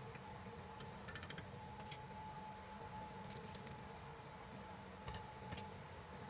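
Faint steady hum with a few short clusters of light clicks and taps, about a second in, near two seconds, a little past three seconds and around five seconds.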